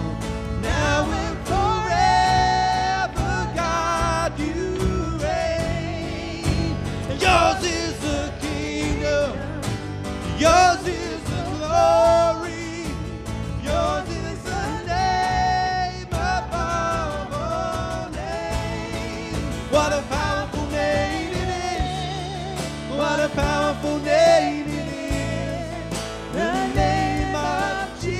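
Live church worship band playing a congregational song: a woman sings the lead over drums, bass guitar and acoustic guitar.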